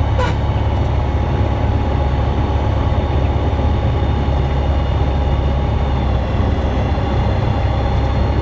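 Aeroprakt A-22 light aircraft's engine running steadily with a heavy low rumble, a brief click near the start.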